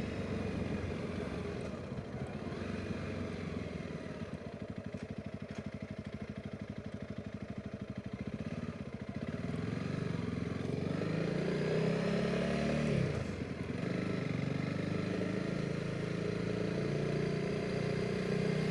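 Honda CRF300 Rally's single-cylinder engine heard while riding, with wind noise. It runs low and pulsing for a few seconds, then the revs climb about ten seconds in, dip briefly near thirteen seconds, and settle into a steadier, louder note.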